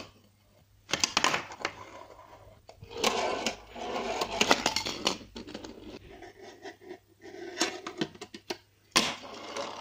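A fingerboard's small wheels rolling and scraping over wooden boards, with sharp clacks as the board's tail and wheels hit the wood, in several short runs.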